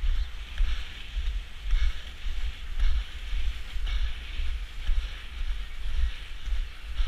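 Wind buffeting the microphone of a skater moving at race speed, a heavy gusting rumble, over the hiss of inline skate wheels rolling on asphalt that swells about once a second.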